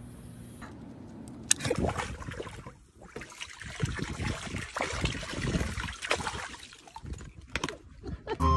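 Water gushing from a garden hose and splashing into a shallow paddling pool, starting about a second and a half in and dying down after about six and a half seconds.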